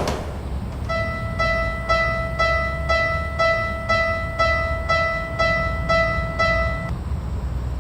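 Japanese level-crossing warning alarm ringing its electronic 'kan-kan' tone, about twice a second, a dozen rings that start about a second in and stop near the end, over a steady low rumble.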